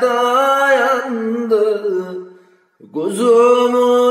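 A man singing a Turkish lullaby (nenni) unaccompanied, in long held notes with a wavering, ornamented pitch. The voice fades out about two seconds in, stops briefly between phrases, and comes back strongly about three seconds in.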